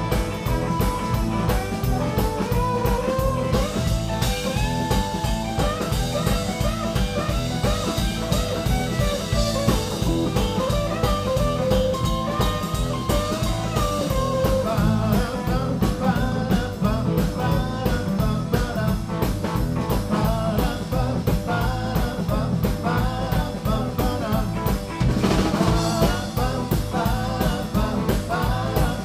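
Live blues-rock band playing. An electric guitar takes melodic lead lines over electric bass and a drum kit keeping a steady beat.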